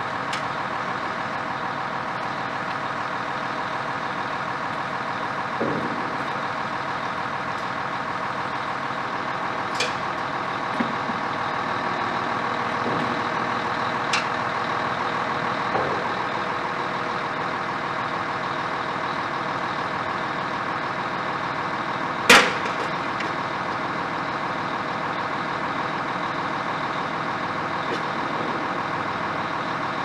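Heavy construction machinery's diesel engine running steadily at constant speed, with a few sharp knocks, the loudest about twenty-two seconds in.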